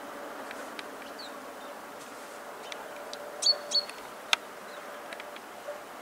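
Fieldfares calling from a treetop: scattered short, dry clicking calls, then two louder sharp high calls close together about three and a half seconds in, followed by a single sharp click.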